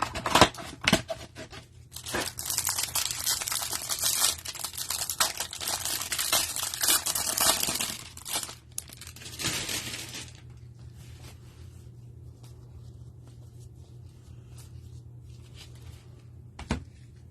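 A cardboard trading-card hanger box being torn open, with crinkling and ripping for about ten seconds. The noise then drops to quiet handling and sliding of the cards, with one sharp click near the end.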